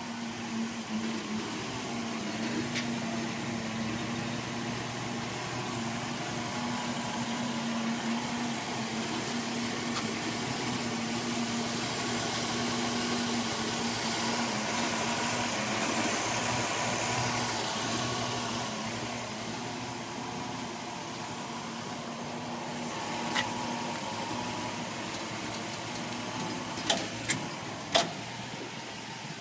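Nordco 6008 hi-lift truck's engine idling steadily, louder in the middle. A few sharp clicks near the end.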